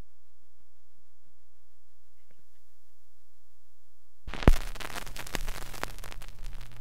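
Steady low hum from the record player and amplifier, then about four seconds in the stylus drops onto the vinyl LP with a loud click. The crackle and pops of the run-in groove follow.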